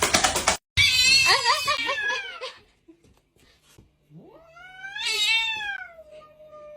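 Cats caterwauling as they square off. About a second in comes a short yowl with a wavering pitch. Near the middle a long drawn-out yowl rises, then slowly sinks, and carries on into the next call.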